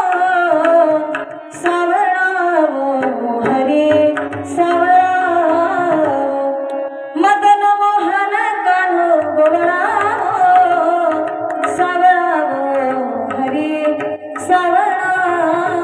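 A woman singing a Marathi devotional kirtan melody into a microphone, in long sliding phrases, with hand-drum accompaniment and occasional small cymbal strikes.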